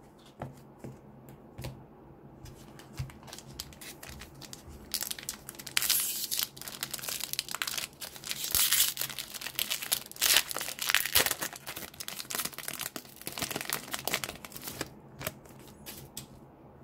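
Foil wrapper of a trading card pack crinkling and tearing as it is opened by hand: a few light clicks at first, then dense crackling from about five seconds in, easing off near the end.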